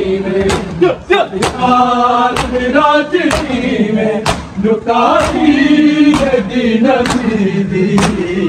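A crowd of men chanting a noha together while beating their chests in unison (matam), the slaps landing about once a second.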